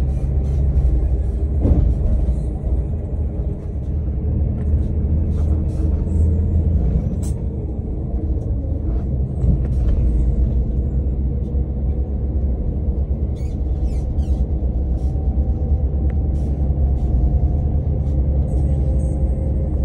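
Steady low rumble of a Scania K124 IB bus's inline-six diesel engine and its road noise while under way, with scattered small rattles and clicks.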